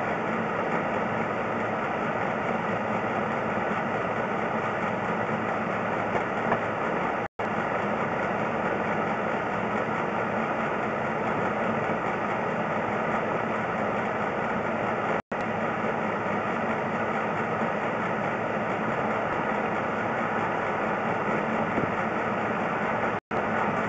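A steady machine drone like an engine running. It is cut by a brief total dropout about every eight seconds.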